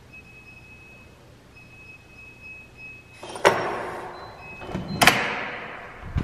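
Apartment front door with a digital door lock being opened from outside: a loud clack about three and a half seconds in, then a second sharp clack about a second and a half later, each trailing off in a fading rush.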